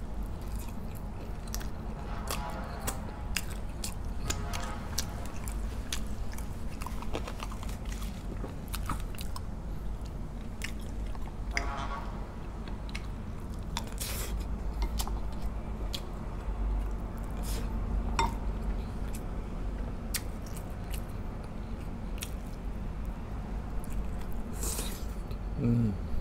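A person chewing and biting braised baby pork ribs close to the microphone, with scattered sharp clicks over a steady low hum.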